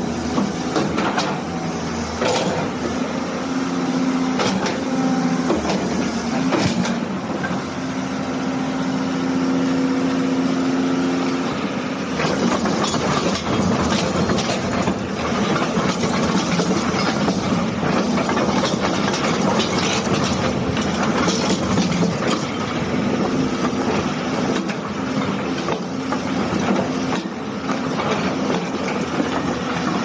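CAT 320C hydraulic excavator working hard: its diesel engine runs under load, a steady hydraulic whine holds twice in the first twelve seconds, and metallic knocks and clanks from the boom and tracks come throughout.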